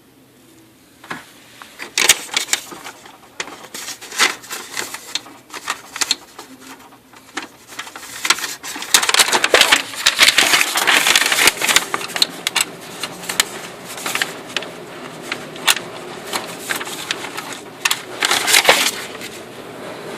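Oki MB480 multifunction laser printer running with a rapid, irregular grinding clatter. The clatter starts about a second in and is heaviest around the middle and again near the end. This is the noise of a new replacement unit that jams and shows errors with nothing obstructing it.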